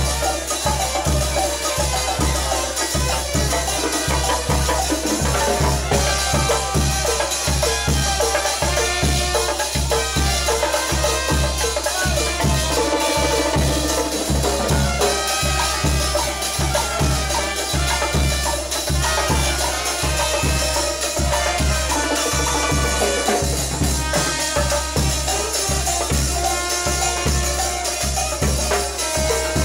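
A band playing dance music, loud, with a steady beat of about two bass-drum thumps a second under percussion and melody lines.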